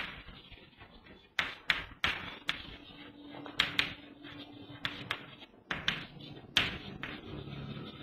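Chalk writing on a chalkboard: a run of sharp, irregular taps as the chalk strikes the board, with faint scratching between them.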